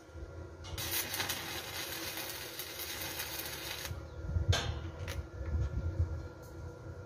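Electric arc welding on a steel pipe with a small inverter welder: the arc crackles and sizzles for about three seconds, then cuts off suddenly. Two sharp knocks follow, about half a second apart.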